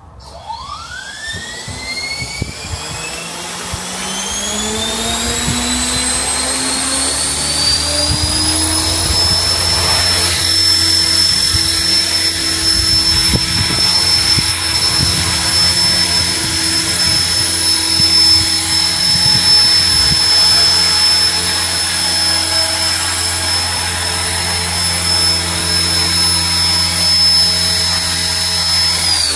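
Align T-Rex 470 electric RC helicopter on its first test hover after a rebuild. Its motor and rotor head spool up in a smooth rising whine over the first several seconds, then hold a steady high whine while it hovers. Near the end the pitch begins to fall as it spools down.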